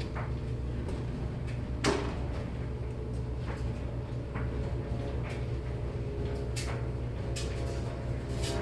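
Steady low mechanical hum with scattered light clicks and one louder knock about two seconds in.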